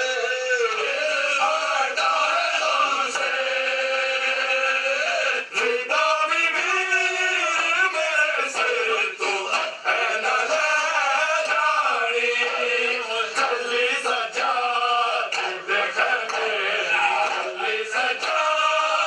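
Men chanting a nauha, a Shia mourning lament, in long held melodic lines, led through a handheld microphone.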